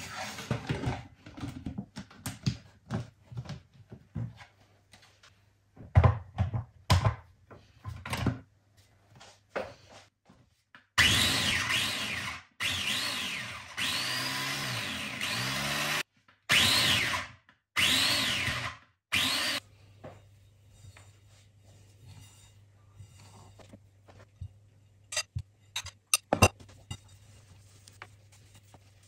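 Knocks and clatter of kitchen handling, then an electric food chopper runs in four bursts of a few seconds each, its motor pitch rising and falling as it chops cauliflower into rice.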